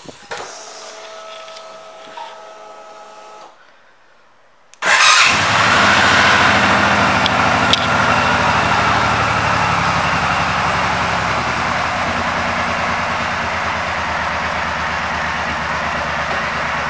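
2017 Suzuki Boulevard M90's 1462 cc V-twin starting up about five seconds in after a faint hum, then idling steadily with an even pulse.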